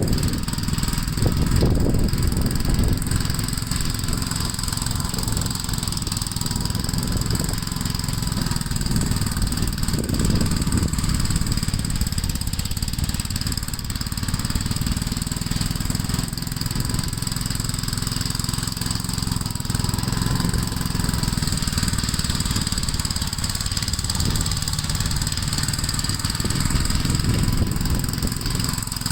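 Small single-cylinder engine of a Gravely walk-behind tractor running steadily under load.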